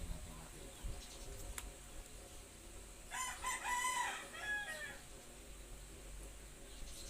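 A rooster crowing once, a call of about two seconds starting about three seconds in.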